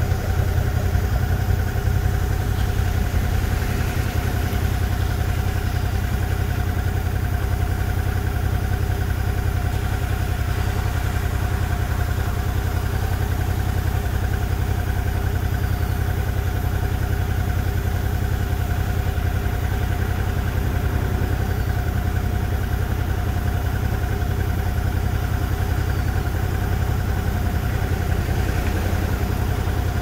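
Motorcycle engine idling steadily close by, an even, unchanging low running sound.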